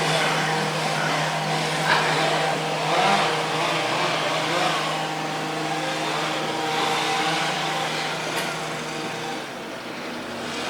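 A steady mechanical hum with a constant low droning tone, which stops about nine seconds in.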